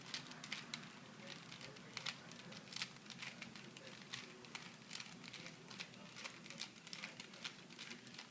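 Plastic Rubik's cube being turned by hand: a quick, irregular run of faint clicks and rattles as the layers are twisted.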